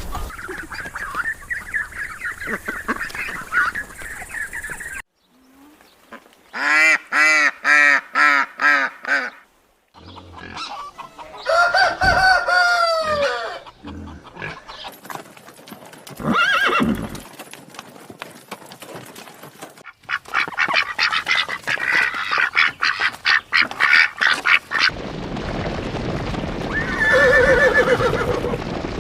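Farm birds calling in a string of short clips: a run of rapid repeated calls, then longer arching calls, with abrupt cuts between segments.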